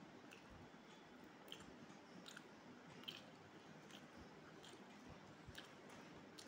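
Faint chewing of a mouthful of rice and fish curry, with small irregular clicks about every half second.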